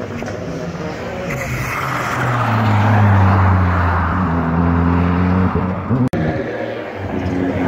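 A race car on a snow-covered ice track goes past at speed with its engine revving hard. It is loudest about three seconds in, with a rushing hiss as it passes, then the engine note drops and fades as it pulls away. An abrupt break comes about six seconds in.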